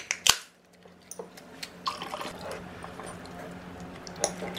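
Table sounds of eating chicken wings: a sharp click shortly after the start, then scattered small clicks and faint wet, smacking sounds over a steady low room hum.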